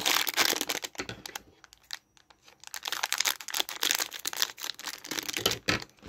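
Thin clear plastic bag crinkling and rustling as it is handled and opened, with a short lull about two seconds in before the crinkling starts again.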